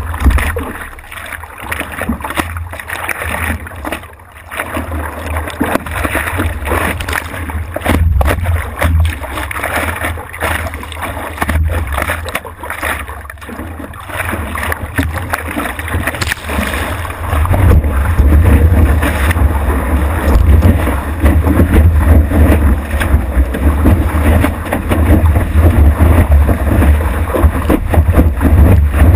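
Water and wind noise picked up by a GoPro mounted on a stand-up paddleboard: waves washing and splashing around the board over a heavy low rumble. It grows louder about halfway through as the board rides a breaking wave.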